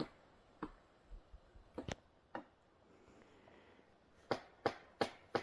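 Pileated woodpecker hammering at wood with sharp, single knocks. A few come spaced out at first, then a quicker, even run of about three knocks a second near the end.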